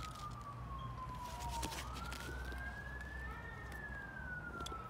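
Emergency vehicle siren wailing in slow glides: its pitch falls, rises again about two seconds in, and falls once more, over a low steady rumble.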